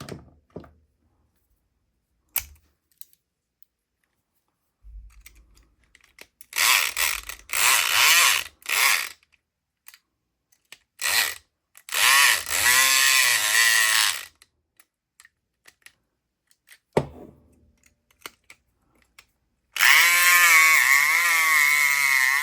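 Southord E500XT 4.5-volt electric pick gun buzzing in bursts as its trigger is pulled, its vibrating pick rattling the pin stack of a padlock. There are several short bursts, then a longer one near the middle, then a sustained run that starts near the end, with sharp clicks in between.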